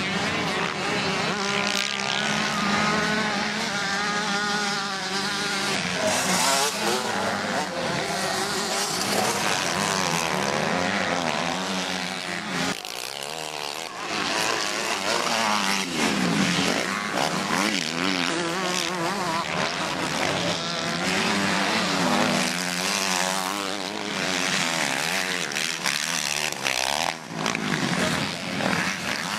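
Motocross bike engines racing on the track, revving up and down over and over as riders work through corners and over bumps, with the pitch rising and falling continually.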